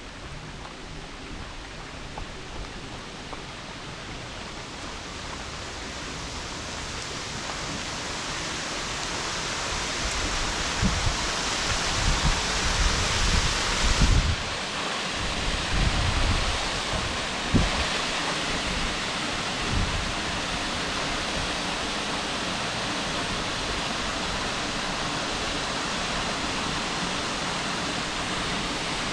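Waterfall pouring steadily, a dense rushing of falling water that grows louder over the first ten seconds or so and then holds steady. Several low thumps come between about 11 and 20 seconds in.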